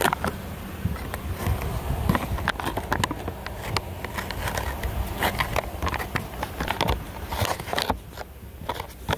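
Handling noise: the microphone rubbing, scraping and knocking against a fabric bag and clothing as it is carried along an airliner aisle, with many short clicks over a low steady hum. The noise quietens briefly near the end, then picks up again.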